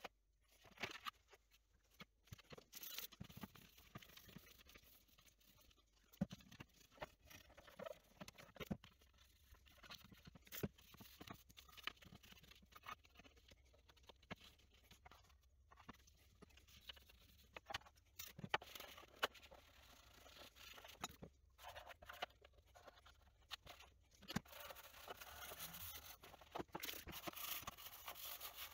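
Faint handling noises on a Commodore 64's plastic case: scattered taps, clicks and rubbing of fingers on the plastic, then a denser stretch of scrubbing with a brush near the end.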